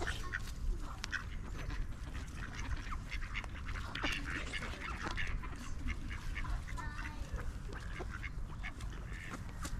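A group of ducks quacking and calling, many short calls overlapping and scattered throughout, over a steady low rumble.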